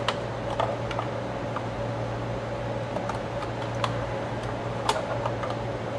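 Scattered light clicks and taps of small projector parts being handled while a jammed slide holder is worked loose, over a steady fan-like hum.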